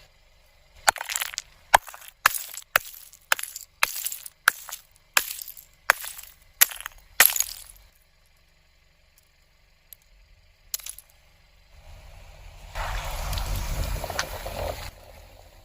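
A run of about a dozen sharp clicks or snaps, roughly one every half second, then a pause, then about two seconds of hissing noise.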